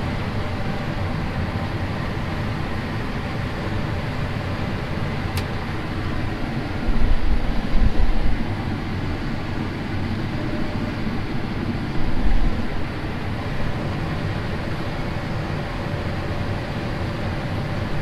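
Combine harvester running steadily while harvesting corn, heard from inside its cab as a constant machine drone and rumble. Louder low thumps come about seven seconds in and again about twelve seconds in, with a short click a little before the first.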